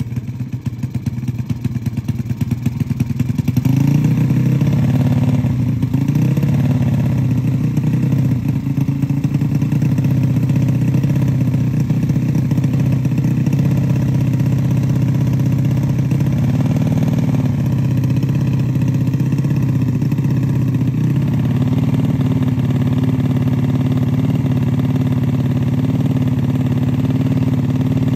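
Race-tuned Yamaha Jupiter Z's single-cylinder four-stroke engine running on its stand, mostly a steady idle with a few throttle blips that make the pitch rise and fall. It gets louder about four seconds in.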